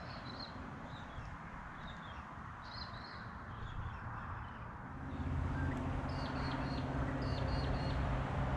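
Birds calling in short, repeated high chirps. About five seconds in, a steady low motor hum starts and runs on under them.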